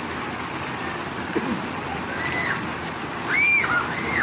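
Water-park pool ambience: a steady rush of water and splashing, with a few short high-pitched cries from children in the pool, each rising and falling, about two seconds in and twice near the end.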